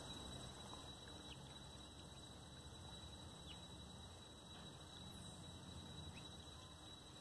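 Near silence: faint outdoor background with a thin, steady high tone.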